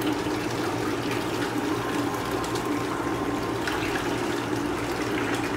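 Water pouring out of a plastic fish-shipping bag through a net into a plastic bucket, a steady splashing trickle.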